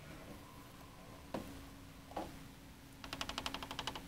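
Hand tools being worked during fiberglass resin layup: two light knocks, then a rapid run of about a dozen sharp clicks lasting about a second near the end, over a faint steady hum.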